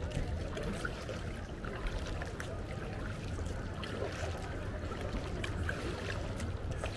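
Kayak being paddled on a calm canal: the paddle blades dip into the water and water trickles and drips off them in many small splashes, over a steady low rumble.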